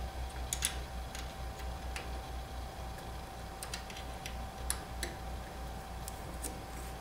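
Hex wrenches tightening steel cap screws on a folding bike-frame joint: scattered light metallic clicks and ticks as the wrenches seat and turn, over a faint steady hum.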